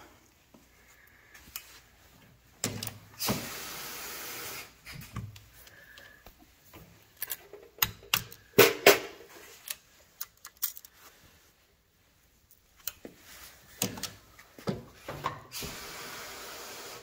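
Valve spring compressor and small steel parts on a Subaru EJ25 SOHC cylinder head: scattered sharp metallic clicks and light taps as valve keepers are knocked loose. Two stretches of steady hiss come in, one a few seconds in and one near the end, each lasting over a second.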